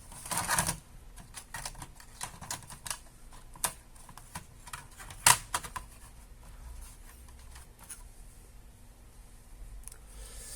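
Scattered small clicks and taps of an opened laptop's parts being handled and fitted back together, with a brief rustle near the start and the sharpest click about five seconds in.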